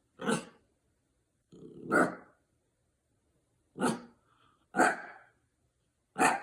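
A dog barking five times, short sharp barks one to two seconds apart.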